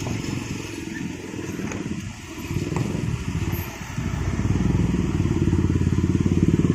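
Motorcycle engine running close by, a fast even pulsing that gets louder about four seconds in.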